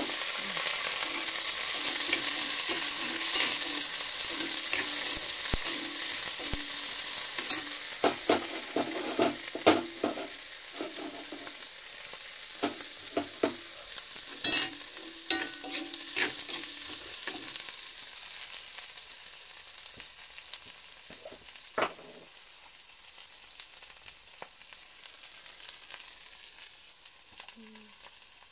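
Sliced onions and small dried fish sizzling in hot oil in a karahi, with a metal spatula scraping and clicking against the pan as they are stirred. The sizzle slowly dies down, and the stirring knocks come in a cluster in the middle.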